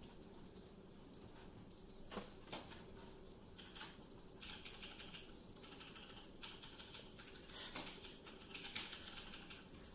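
Faint scuffling of two cats wrestling inside a cardboard box: claws scratching and cardboard rustling, with scattered light clicks.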